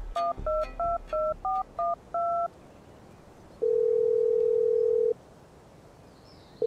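Telephone keypad tones as a number is dialled: a quick run of about nine short two-note beeps. Then the ringback tone sounds for about a second and a half, meaning the call is ringing at the other end, and starts again at the very end.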